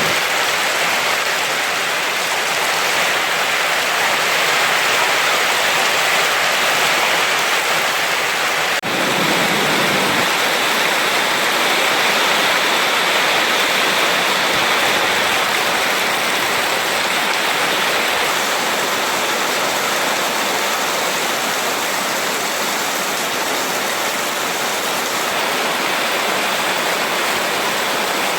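Heavy tropical downpour: a loud, steady, dense hiss of rain, with a brief dip about nine seconds in.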